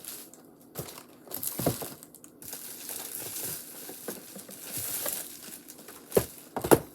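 Plastic packaging and pieces of a slime kit crinkling and rustling as they are handled, with a few sharper clacks; the loudest two come near the end.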